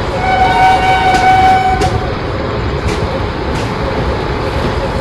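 Train horn sounding once for nearly two seconds, a steady chord, over the loud steady rumble of a train running past, with a few sharp knocks from the wheels and track.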